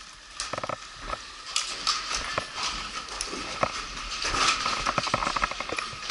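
Boots knocking and scuffing across a hollow wooden floor inside a metal-walled building, an irregular run of footsteps with a few quick rattling clusters of clicks.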